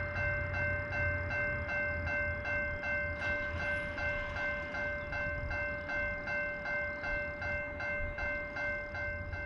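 Railroad grade-crossing warning bell ringing steadily at about four strikes a second, signalling an approaching train, over a low rumble.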